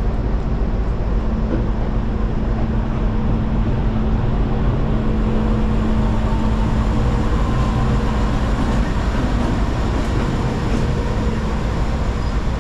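Diesel locomotive running with a steady low hum.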